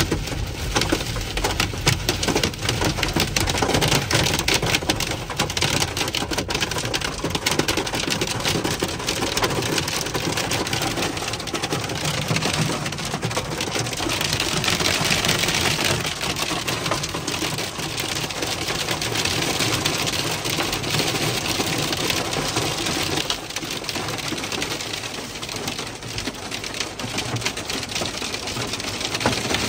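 Heavy rain falling on a van's roof: a dense, steady patter of drops.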